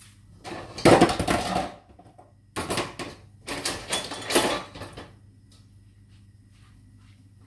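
Rapid clattering and rattling of kitchenware being handled and rummaged through, in three bursts over about the first five seconds.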